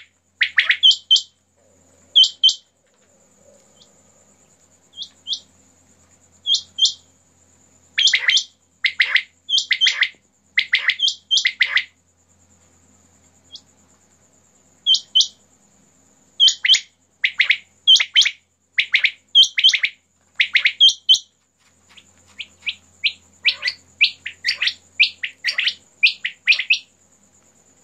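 Caged quails calling: short, sharp notes in quick groups of two or three, several birds answering one another, with a lull in the middle and busier calling near the end.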